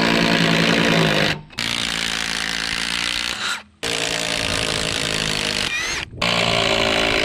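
Ryobi cordless impact driver backing a lag screw out of a log, its motor and hammering mechanism running in four runs with three brief stops between them.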